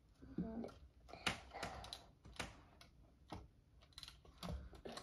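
Plastic Lego bricks clicking and knocking as a picture panel is handled and pressed onto a Lego easel: a string of faint, irregular clicks.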